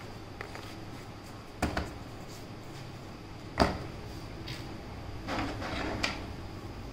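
Hands handling an SSD enclosure's packaging and parts on a wooden table: a knock about a second and a half in and a louder one about three and a half seconds in, then softer handling noise ending in a click.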